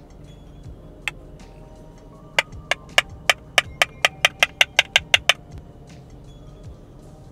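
Soft background music with one sharp click about a second in, then a quick run of about a dozen sharp clicks over some three seconds, coming faster as they go.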